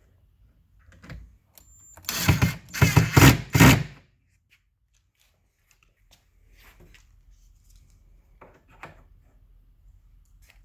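Cordless drill/driver driving small screws into cabinet corner brackets, a loud run of short trigger bursts about two to four seconds in, then a couple of light knocks near the end.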